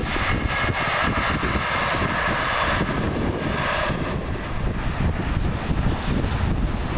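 A train passing on the line, its mix of rail noise and steady electric whining tones starting suddenly and dying away about four seconds in, over wind buffeting the microphone.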